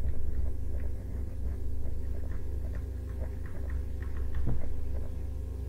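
Light tapping and scratching of a stylus writing on a tablet, in many faint short strokes, over a steady low hum.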